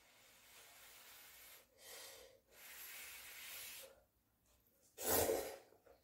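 Instant cup noodles being slurped: several long airy draws over the first four seconds, then a shorter, louder slurp about five seconds in.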